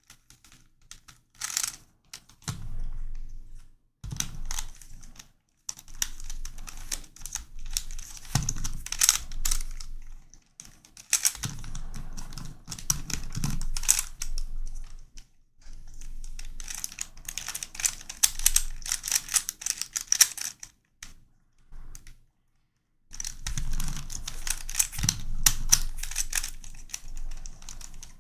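Plastic pieces of a non-magnetic YuXin Corner Helicopter 2x2 puzzle clicking and clacking as it is turned in quick runs of moves. Short pauses between the runs.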